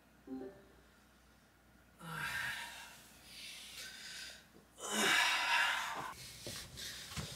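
A person getting out of bed: a quilted comforter rustles in several long swishes as it is thrown back, loudest about five seconds in.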